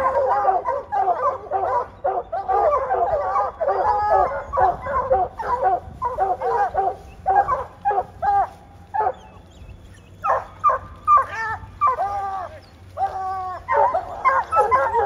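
A pack of hunting dogs barking and baying in rapid, overlapping calls at a black bear they have treed; it is the treed bark that tells the hunters the bear is up a tree. There is a brief lull about nine seconds in, then the barking picks up again.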